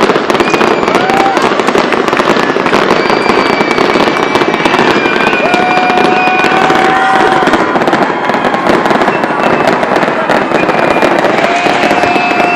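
New Year's Eve fireworks display at its height: a dense, continuous barrage of crackling and popping bursts, with several long, steady whistling tones sounding over it.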